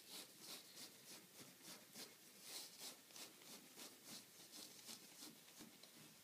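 Faint paintbrush strokes on a stretched canvas: soft, quick scratchy dabs, about three or four a second.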